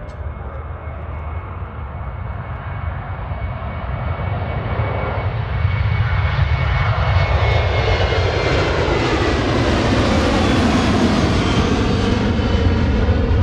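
Jet engines of a Boeing airliner at takeoff power, growing louder as the aircraft rolls and lifts off, then staying loud as it climbs past. A high whine rides over the low rumble and slides slowly down in pitch.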